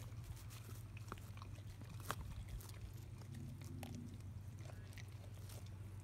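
Boxer-mix dogs chewing raw salmon heads: scattered faint crunches and wet clicks over a steady low hum.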